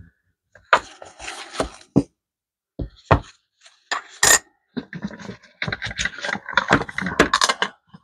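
Handling noises: rustling and scraping from gloved hands, with a string of sharp knocks and clicks as a silver-coloured coin is picked up and set down on a test plate. The clicks come thickest in the second half.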